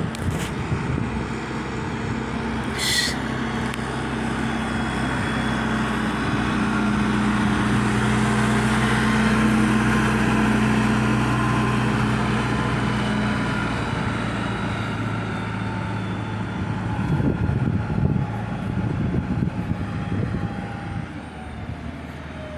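Heavy truck's diesel engine running, growing louder to a peak about halfway through and then fading as it passes, with a brief high squeal about three seconds in.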